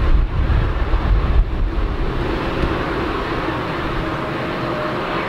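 Boeing 747-8 freighter's four GEnx jet engines running as it rolls out along the runway after landing: a continuous noise, gusty and heavy in the low end for the first couple of seconds, then steadier with a faint hum coming through.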